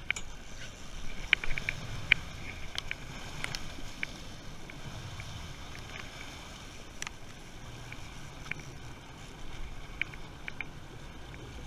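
Twin 150 hp outboard motors running with water churning and splashing around them at the stern. A few short sharp clicks and taps sound here and there, most in the first few seconds.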